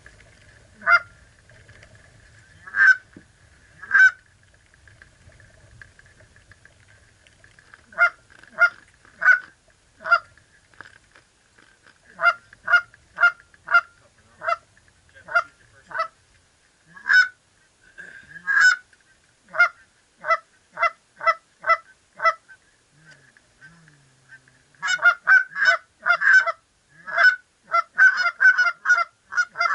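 Goose honks: loud, short calls, at first singly and in short runs, then quickening into rapid, overlapping honking from about 25 seconds in.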